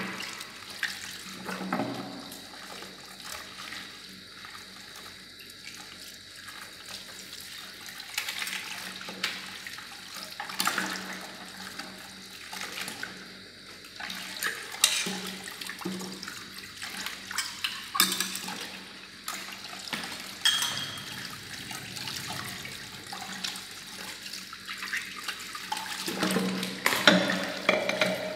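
Tap water running into a kitchen sink while dishes are washed by hand, with clinks and knocks of crockery and utensils at irregular intervals.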